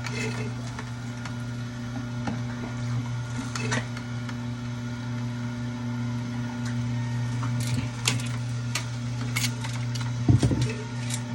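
Steady low machine hum, with scattered light clicks and a louder knock near the end.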